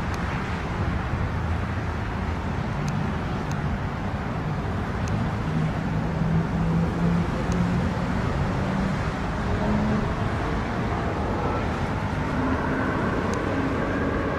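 Formation of Pilatus PC-21 turboprop aerobatic aircraft passing in flight, a steady droning rumble with a low hum that shifts in pitch and grows louder near the end.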